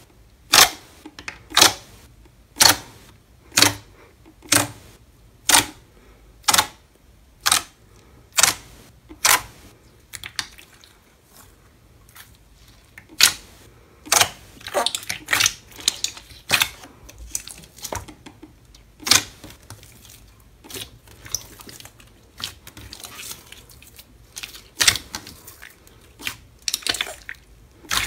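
Fingers pressing and poking into a thick, glossy slime, each press giving a sharp sticky pop. The pops come about once a second at first, then in irregular crackling clusters about halfway through.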